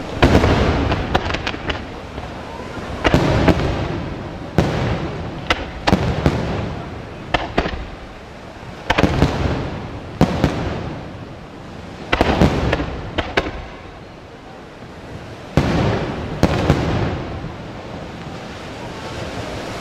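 Aerial firework shells bursting one after another, a deep boom every couple of seconds, each trailing off in a rolling rumble, with sharper cracks and reports in between.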